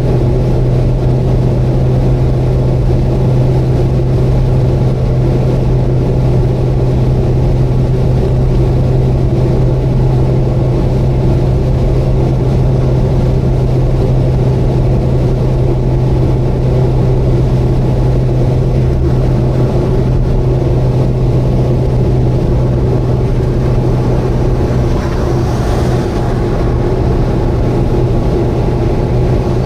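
Subaru Vivio (KK3) cruising at steady speed, heard from inside the cabin: a loud, unchanging engine drone with road noise, a faint hiss rising briefly near the end.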